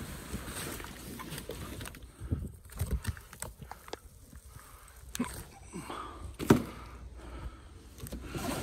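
Cardboard packaging being handled and moved: scattered scrapes, rustles and knocks, the loudest knock about six and a half seconds in.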